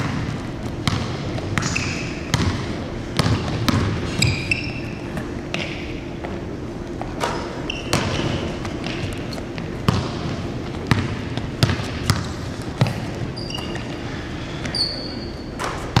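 Basketballs bouncing on a hardwood gym floor, in irregular thuds, with brief high sneaker squeaks on the court.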